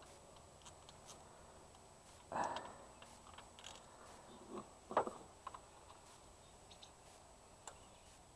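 Faint clicks and knocks of a ratchet and socket extension being handled while a spark plug is taken out of a car engine, with a short scuffle about two and a half seconds in and a sharper knock about five seconds in.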